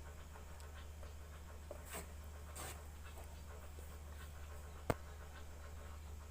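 A few faint clicks of a Samsung E1272 phone's keypad buttons being pressed to test the phone, scattered, with one sharper click near the end, over a steady low hum.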